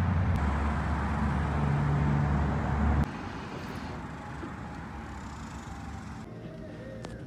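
Outdoor parking-lot noise: a steady low rumble that cuts off abruptly about three seconds in, giving way to quieter indoor store ambience.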